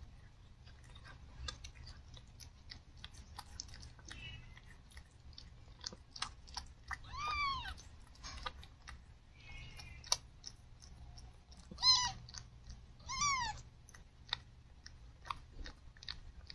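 Siamese mother cat licking and chewing at her newborn kittens, a run of small wet clicks, with short, high, arching newborn-kitten mews about halfway through and twice more a few seconds later.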